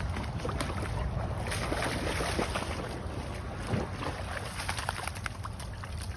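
Water splashing in short irregular bursts as a dog swims and paddles, over a steady low rumble of wind on the microphone.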